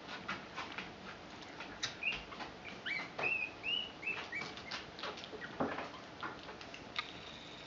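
Newborn puppies squeaking: a run of short high-pitched squeaks a couple of seconds in, among small scuffling clicks.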